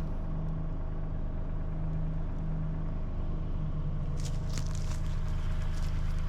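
Bulldozer's diesel engine running steadily, with a low, even hum. From about four seconds in, a few short crackling clicks join it.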